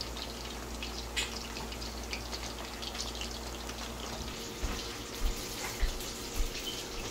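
Small banga mary fish deep-frying in a pot of hot oil: a steady crackling sizzle full of tiny pops. A few soft low thumps come in the second half.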